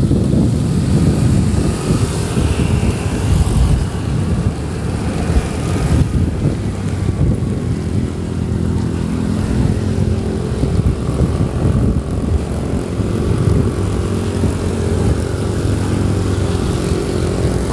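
Motorcycle engine running while riding, with heavy wind buffeting the microphone; a steadier engine hum comes through from about six seconds in.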